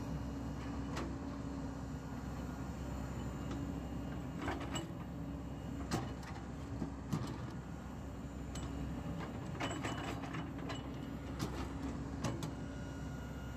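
JCB JS205 tracked excavator's diesel engine running steadily as the bucket digs into sand, with scattered sharp knocks, several close together about ten seconds in.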